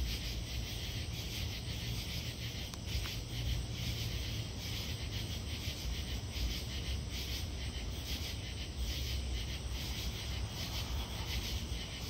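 Steady chorus of night-singing insects, a fast even pulsing, over a low rumble.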